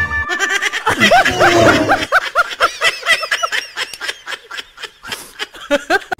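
Loud laughter in a fast run of short bursts, a few a second, growing sparser toward the end.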